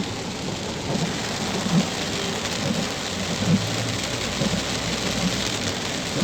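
Heavy rain falling on a car, heard from inside the cabin while driving: a steady hiss of rain with a low rumble underneath.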